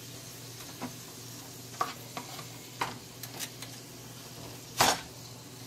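A white plastic spoon stirring chopped spinach, onion and chicken in a nonstick frying pan, scraping and knocking against the pan about once a second, with the loudest knock a little before the end, over a faint steady sizzle.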